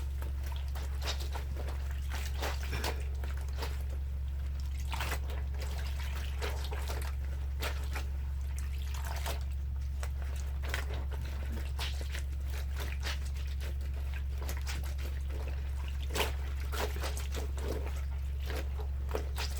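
Wet clothes being washed by hand in a basin of water: irregular sloshing, dripping and squishing of soaked fabric, over a steady low hum.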